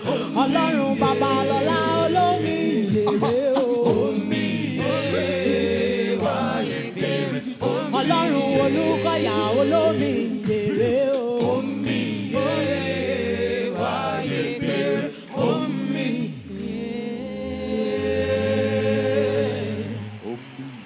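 Gospel vocal group singing a praise song in close harmony over a steady low accompaniment, the lead and backing voices trading lines; the song fades out near the end.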